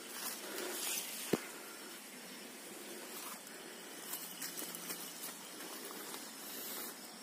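Faint uneven rustling and scuffing noise with a single sharp click about a second in.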